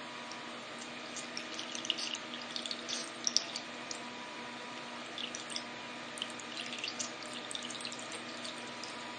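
Water dripping and trickling in quick, irregular small splashes, over a steady faint hum.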